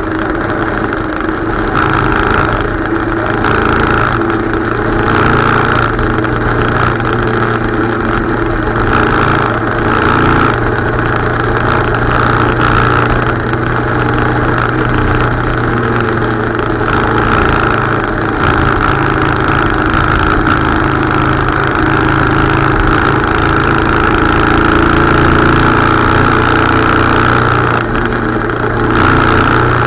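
Motorcycle engine running steadily while riding along a road, a constant engine note with no marked revving.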